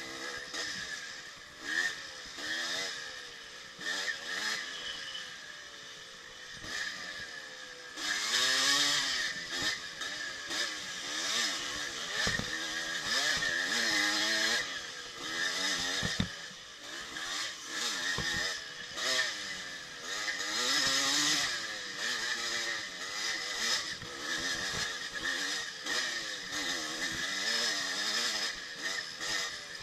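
1984 Yamaha IT200's two-stroke single-cylinder engine revving up and down as it is ridden hard over a rough trail, its pitch rising and falling with each throttle change. A few sharp knocks come partway through.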